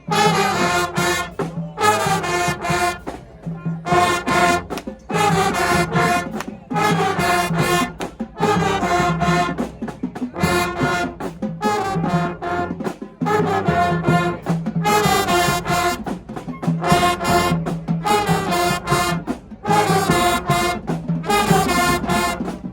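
A high school marching band's brass section playing together in short punched phrases, each a second or two long, with brief breaks between them.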